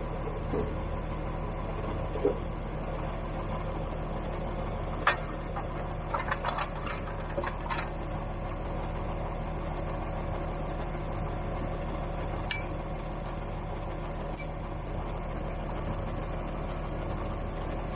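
John Deere tractor engine idling steadily, with sharp metal clanks and taps now and then as a hitch is fitted to its drawbar with wrenches.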